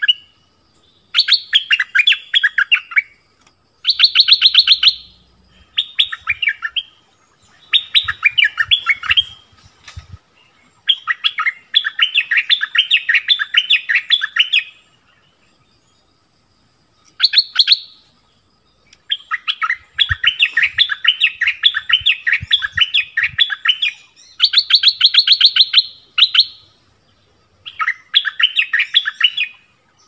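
Stripe-throated bulbul song: loud phrases of rapid, chattering notes, each lasting one to three seconds, repeated with short pauses between them.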